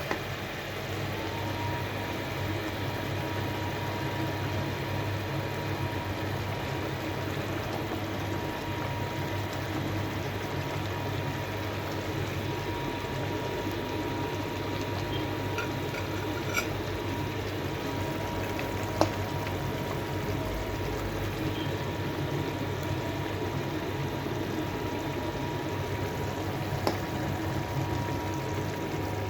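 Onion sauce for chicken cooking in a pan: a steady bubbling simmer, with a few clicks of a utensil against the pan. A thin steady whine comes in about a second in and holds.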